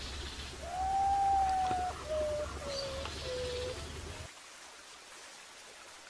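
Common potoo singing its mournful whistled song: one long clear note, then three shorter notes, each lower than the last. A low background rumble cuts off soon after.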